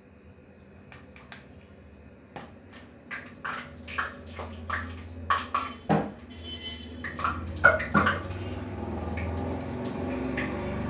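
Irregular clinks and taps of a steel plate and kitchen utensils as a wet prawn vada mixture is handled by hand, with a steady low hum that comes in a few seconds in and grows louder.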